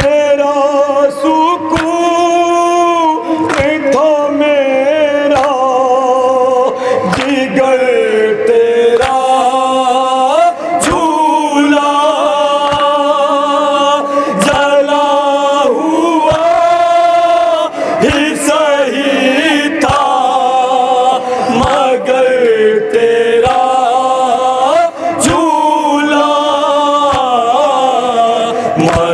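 Men chanting a noha, an Urdu elegy, together in a steady melodic chant. A beat of hands on the chest (matam) lands about every two seconds.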